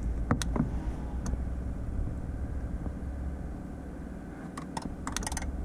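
Steady low hum of the 1984 Ford LTD Crown Victoria's heater blower running with the key in the run position and the engine off. A few sharp clicks come about half a second in, and a quick run of clicking near the end as the engine computer's self-test gets going.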